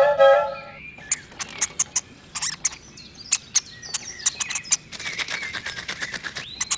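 A short musical tone sting that stops under a second in, then irregular high-pitched chirps and clicks, several a second, with a faint hiss under them near the end.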